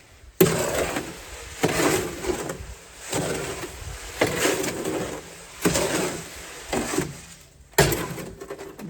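A tool being worked through a wet, soupy concrete mix: about seven rough strokes, roughly a second apart.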